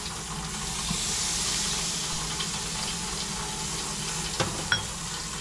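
Melted butter sizzling steadily as it is poured over blue crabs on a hot grill, with a couple of light clicks near the end.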